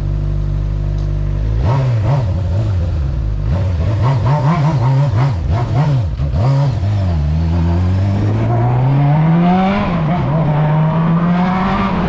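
Honda Hornet motorcycle engine idling, then revved in a string of quick blips from about two seconds in. It then pulls away, the pitch rising steadily, dropping briefly at a gear change near the tenth second and rising again.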